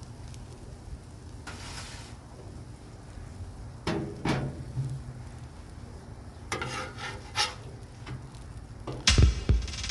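Faint steady sizzle with a few sharp clinks of a metal utensil against metal, around four seconds in and again around seven seconds. Music with a beat starts near the end.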